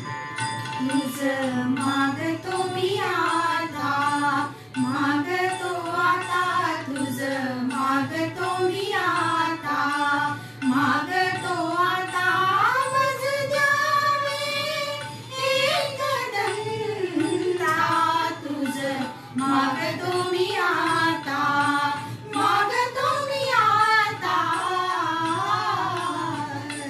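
Women singing a Marathi devotional song together in unison, one swaying melody line that climbs to a higher phrase about halfway through.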